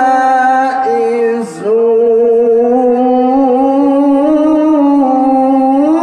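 A man's voice chanting Quran recitation (tilawat) in a drawn-out melodic style, holding long wavering notes. About one and a half seconds in, the pitch and loudness dip briefly before the held note resumes.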